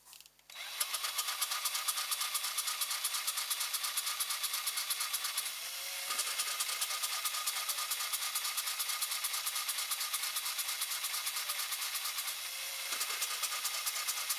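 A power tool running steadily with a fast, regular pulsing, its tone shifting slightly about five seconds in and again near the end.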